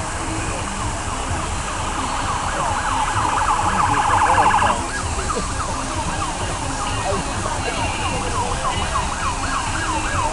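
Emergency vehicle sirens sounding: a fast yelp that stops suddenly about four and a half seconds in, then slower rising-and-falling sweeps that grow louder toward the end, over a low traffic rumble.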